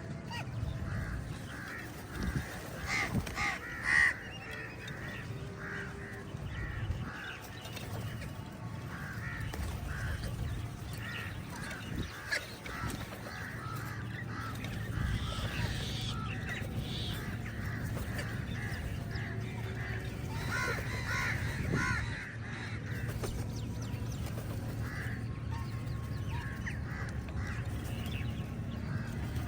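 A flock of crows cawing, many harsh calls overlapping, with louder bursts a few seconds in and again around twenty seconds in. A steady low rumble runs underneath.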